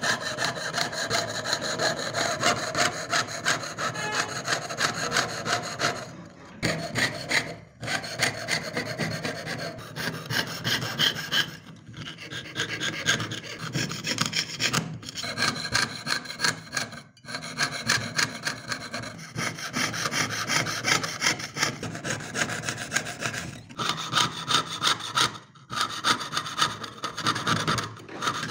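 Jeweler's saw cutting through thin metal sheet in quick back-and-forth strokes, piercing out the background of an engraved pendant design. The sawing stops briefly several times.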